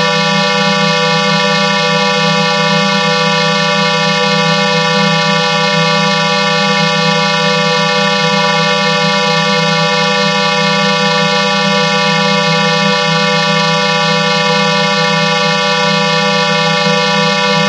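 'Pulse Clearer' sound effect synthesized with the IL Vocodex vocoder: a loud, steady drone of many stacked tones over a low buzzing band, holding unchanged.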